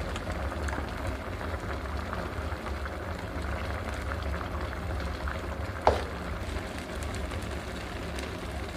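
Curry noodle broth bubbling in an electric hot pot: a steady fine crackle of small bubbles over a low hum, with one sharp knock about six seconds in.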